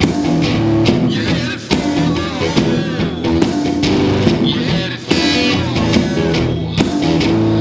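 Blues song with guitars playing.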